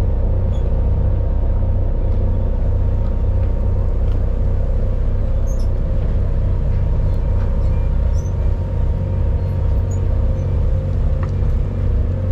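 Fishing boat's engine running steadily: a low, even drone with a steady hum.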